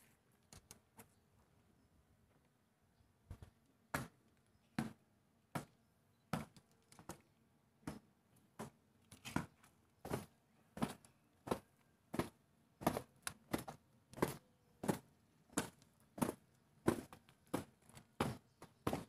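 Marching troop's boots striking the ground in unison, a sharp stomp about every three-quarters of a second that starts a few seconds in and keeps an even pace.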